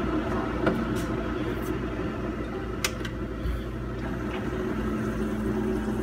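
Keurig single-serve coffee maker running as it heats up, giving a steady mechanical hum with a couple of faint clicks. A steady low pump drone sets in about five seconds in.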